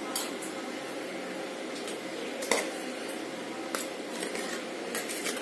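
A spoon scooping cooked carrot halva out of a pan and into a dish, with a few scattered clinks and knocks of the spoon against the vessels.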